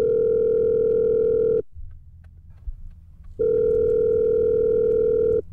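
Ringback tone of an outgoing mobile phone call ringing unanswered: two steady rings, each about two seconds long, with a pause of about two seconds between them.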